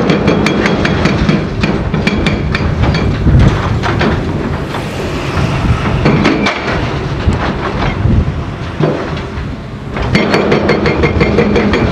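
Rapid, irregular metallic clanking and knocking from work on cut steel bridge-girder sections, over a steady engine drone. The knocks thin out in the middle and come back thick and fast about ten seconds in.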